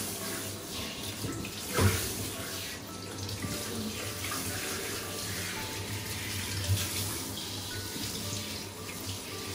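Hand-held shower head running in a bathtub, water spraying steadily onto a puppy and the tub floor. A single sharp knock about two seconds in.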